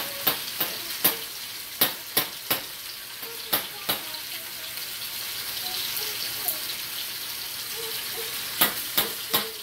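Reshmi kebabs on a bed of onion and tomato sizzling in oil in a frying pan over a gas flame, with a steady hiss and sharp pops and crackles, thickest in the first few seconds and again near the end.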